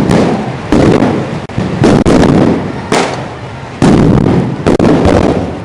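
Firecrackers (bangers) going off one after another, a loud bang about once a second at irregular intervals, each one echoing briefly.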